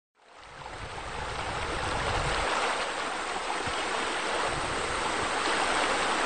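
Water running and splashing steadily, fading in over the first second, with a low rumble underneath that drops away about two and a half seconds in.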